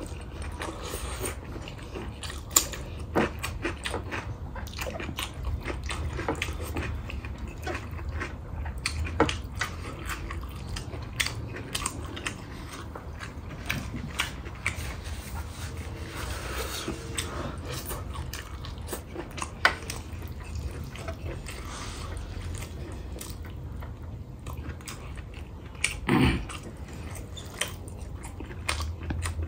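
Close-up eating sounds: chewing and biting of rice and pork taken by hand, with many short wet clicks and smacks over a low steady hum. There is a louder burst of sound about 26 seconds in.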